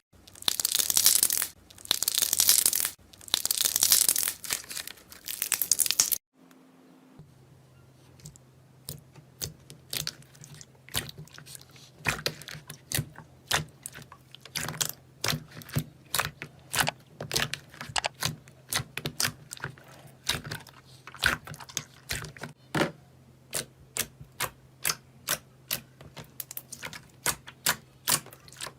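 Slime being handled: a few seconds of loud crinkly crackling bursts, a brief pause, then a long run of sharp clicking pops, about two or three a second, as the slime is pressed and poked.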